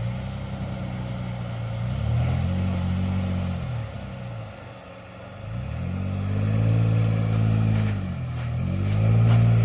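Off-road truck or SUV engine revving up and easing off in three surges, the driver working the throttle to get the vehicle up an obstacle.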